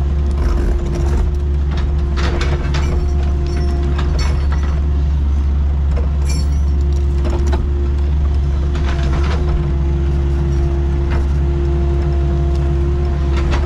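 Excavator's diesel engine running steadily under work, a heavy low drone with a constant hum over it, and scattered short knocks and clatter from the machine at work.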